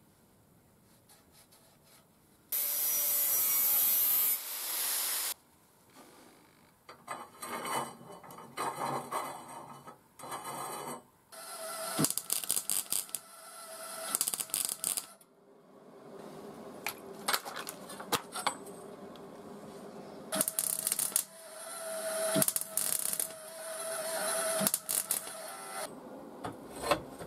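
Metalworking tools on steel: a loud, steady, hissing power-tool run of about three seconds near the start, a second noisy tool run a few seconds later, then long stretches of irregular crackling with sharp clicks and knocks.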